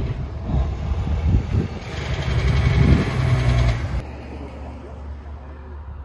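A motor vehicle running close by: a heavy low rumble with road noise that gets louder in the middle and cuts off sharply about four seconds in, leaving a quieter outdoor background.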